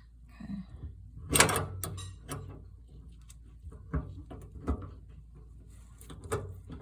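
Metal parts of an Ironrite ironer's pedal assembly clicking and knocking against each other as they are handled and fitted together. The loudest knock comes about a second and a half in, with a few lighter clicks after it.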